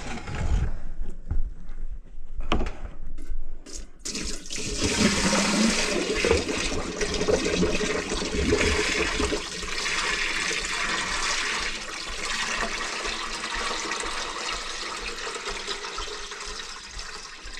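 A few knocks, then water poured from a five-gallon plastic bucket into a stainless steel kitchen sink. It splashes steadily into the basin, which fills up, starting about four seconds in.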